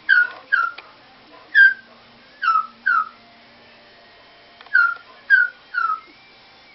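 Pet bird mimicking a small toy dog's bark: eight short, high yips that drop in pitch, in quick groups of two, three and three.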